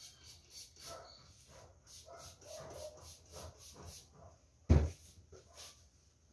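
Cloth rubbing across a stone countertop in quick, even strokes, about three a second, with one louder thump near the end.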